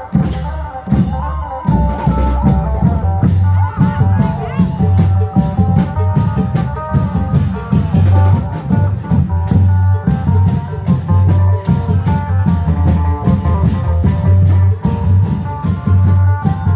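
Live Isan klong yao long-drum band music: a steady beat of deep drum hits under dense, quick percussion strokes, with a plucked phin melody on top.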